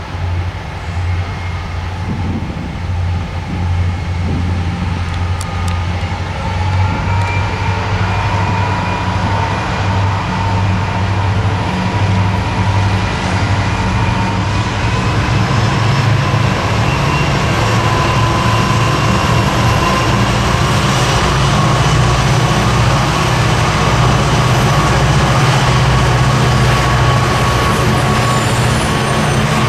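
EMD diesel locomotives of a freight train working hard as they pass: a steady low engine drone with a high whine that slowly rises in pitch, growing louder through the second half.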